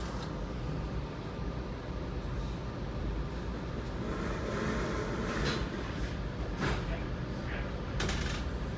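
Steady low hum of a Metra commuter train's passenger car on the move, heard from inside the car, with a few sharp knocks in the second half and faint voices.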